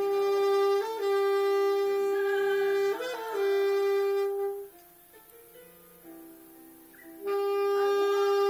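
Saxophone playing slow, long held notes with short ornamental turns between them; it breaks off for about two and a half seconds in the middle, then comes back with another long held note.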